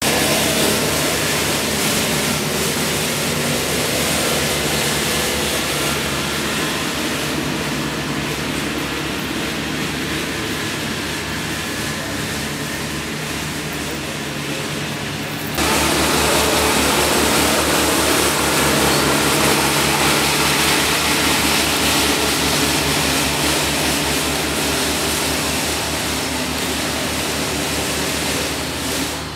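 A motor engine running steadily nearby. About halfway through it gets abruptly louder, with a fast even throb.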